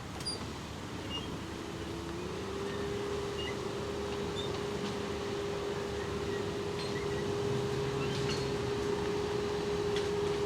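An engine running at steady revs: a steady hum over a low rumble that steps up in pitch about two seconds in, then holds and grows slowly louder.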